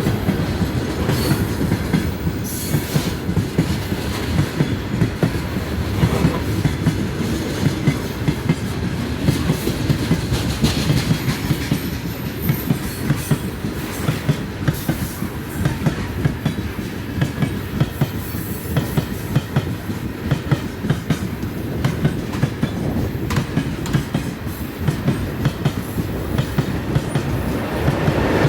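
Moving train's wheels clattering over the rail joints, a steady run of knocks over a low rumble.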